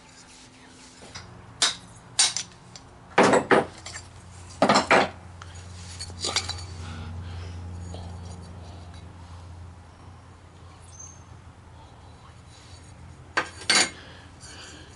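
Metal lawnmower deck spindle parts clanking and knocking as they are taken apart on a bench: sharp clinks in small clusters, several in the first half and a pair near the end. A low steady hum runs underneath for most of the first ten seconds.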